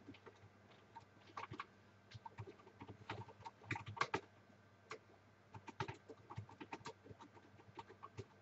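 Typing on a computer keyboard: faint, irregular keystroke clicks in quick runs with short pauses between them.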